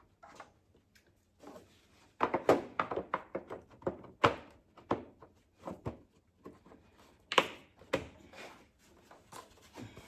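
Parts being fitted back by hand onto a Cub Cadet Ultimate ZT1 zero-turn mower's engine, the air filter cover and the spark plug wire: a string of irregular knocks and snapping clicks, in clusters.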